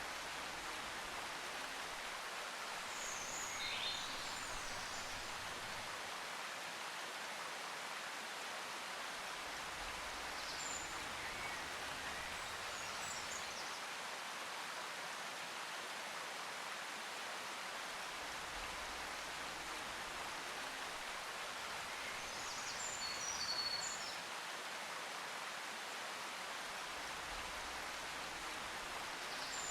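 Steady rushing noise like running water or rain, with a few short high chirps like birdsong scattered through it: a nature-sounds ambience.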